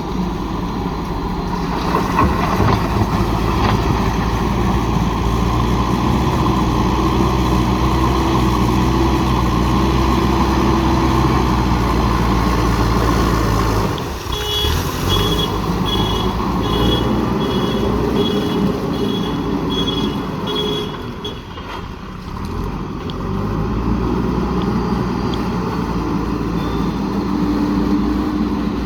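Diesel engine of a JCB backhoe loader running steadily under load. About halfway through, the engine note drops and a reversing alarm beeps steadily, about one and a half beeps a second, for several seconds. The engine then eases and builds up again near the end.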